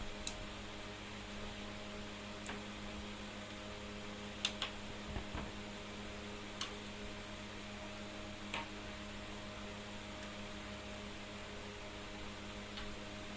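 Steady electrical hum with about half a dozen light clicks and taps scattered through it, two of them close together about four and a half seconds in, from a kitten playing with headphones.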